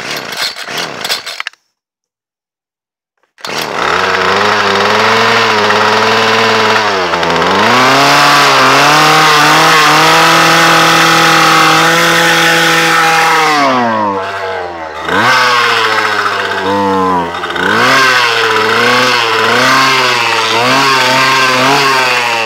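Homelite string trimmer's two-stroke engine, fuelled mostly with thick soybean vegetable oil and choked nearly full, running loudly after a short rattling burst and a brief gap. Its revs surge and sag unevenly, nearly dying about two-thirds of the way through before picking back up and wavering on.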